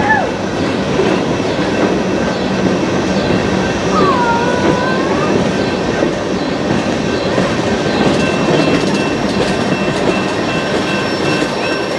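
A BNSF freight train's cars rolling past, a loud, steady rumble of steel wheels clattering over the rails.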